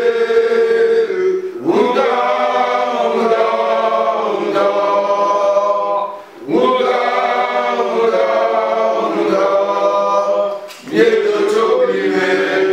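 A group of men singing together without accompaniment, in long held phrases with short breaks between them.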